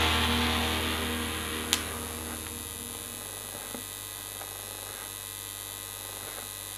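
Rock music from a vinyl record fading out over the first three seconds, leaving a steady electrical hum from the record player. A sharp click comes about a second and a half in, with a few faint clicks after it.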